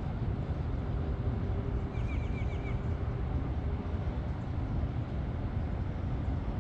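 Steady low outdoor rumble, with a short run of four or five quick high bird chirps about two seconds in.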